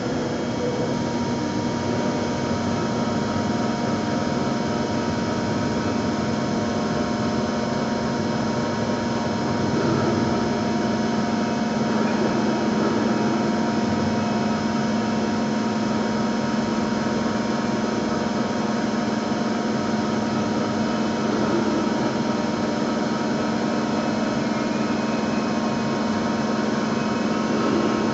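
Dörries Scharmann CNC floor boring and milling machine running as its large T-slotted rotary table turns slowly: a steady mechanical drone with a constant low hum and several steady higher tones, a little louder from about ten seconds in.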